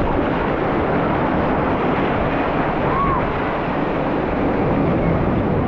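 Ocean surf washing onto a beach, a steady rushing wash with wind buffeting the microphone.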